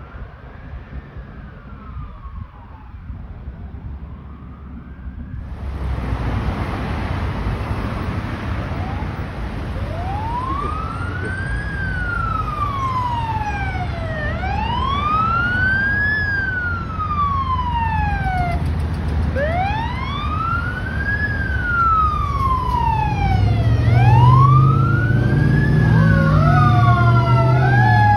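Fire engine's siren wailing in a slow rise and fall, about one cycle every four to five seconds, over traffic noise. It is faint for the first few seconds, then cuts in much louder about five seconds in. Near the end a deeper, louder rising-and-falling tone joins and the siren switches to faster sweeps.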